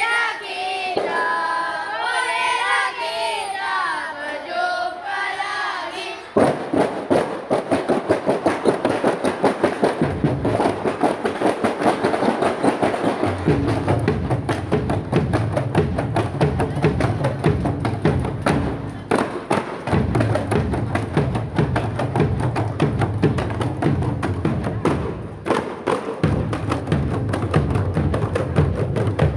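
Kompang ensemble: a group of voices chanting together for the first six seconds, then many hand-struck kompang frame drums start together in a fast, dense interlocking rhythm. Deeper strokes join a few seconds later and drop out briefly twice.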